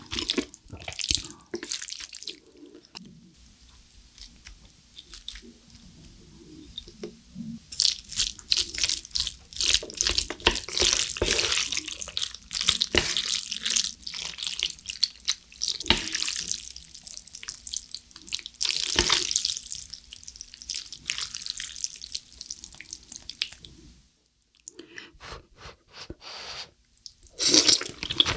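Water poured from a glass over a plate of black bean instant noodles and worked in with chopsticks to loosen the sauce: wet splashing and dripping from about eight seconds in until it stops abruptly about four seconds before the end.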